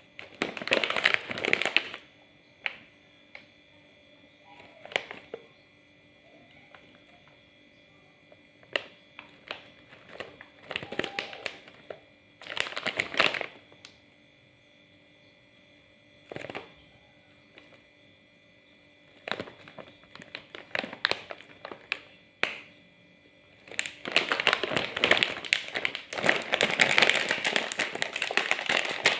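Plastic snack packets of Miaow Miaow crackers crinkling as they are handled, in irregular bursts, then a long continuous stretch of crinkling near the end.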